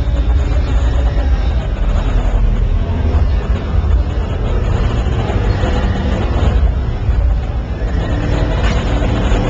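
Loud, steady din of a crowded exhibition hall, dominated by a deep low rumble with crowd chatter mixed in.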